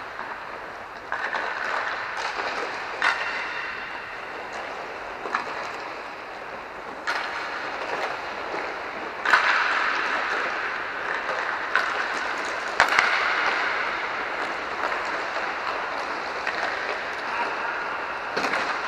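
Inline hockey practice: a steady rolling rumble of inline skate wheels on the rink floor, with sharp clacks of sticks and pucks every few seconds.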